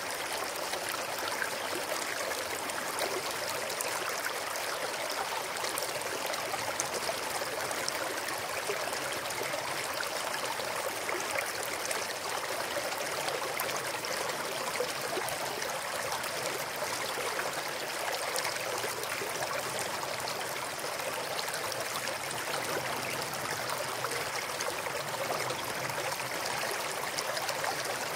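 Small mountain stream flowing over stones, a steady bubbling rush of water that is brightest in the higher range and has little low rumble.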